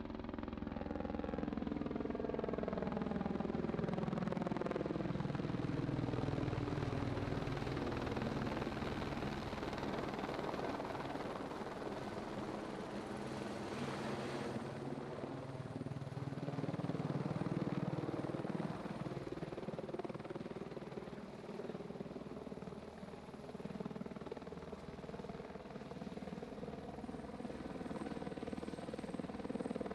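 Helicopter flying with a cow slung on a cable beneath it, its rotor and engine sound continuous, swelling and fading, with the pitch falling in the first few seconds and rising again near the end as it moves past.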